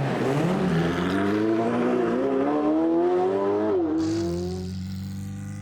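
Racing car engine revving up, its pitch climbing steadily for several seconds. About four seconds in the pitch drops briefly, then the engine sound fades into a lower steady tone.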